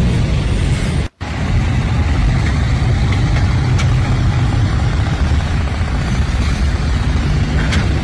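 A loud, steady low rumbling noise with hiss above it, broken by a split-second cut to silence about a second in.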